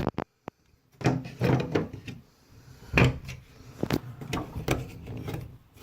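Knocks, clicks and scraping from shower faucet parts being handled during reassembly. The sharpest knock comes about three seconds in.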